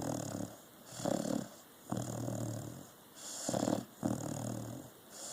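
A dog snoring in its sleep: slow, even breaths about every two seconds, each a low pitched snore alternating with a hissier, airy breath.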